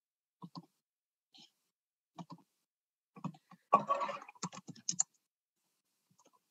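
Light clicking and tapping at a computer: a few scattered clicks, often in pairs, then a quicker run of them with one brief louder burst about four seconds in.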